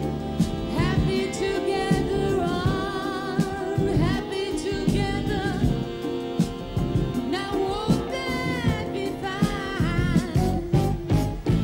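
A woman sings a slow ballad into a microphone, holding notes with a wide vibrato. A live band accompanies her, with drums and cymbals striking throughout.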